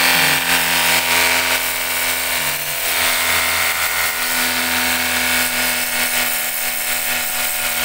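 Cordless 24-volt battery pressure washer running steadily: the pump motor's hum under the hiss of the water jet spraying close onto a ribbed plastic floor mat.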